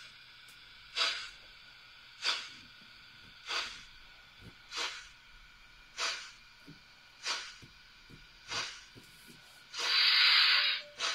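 Märklin 37015 model of the Bavarian S 2/6 steam locomotive, its built-in sound playing slow, even steam chuffs about one every 1.3 seconds as it creeps along. A longer, louder hiss of steam comes about ten seconds in.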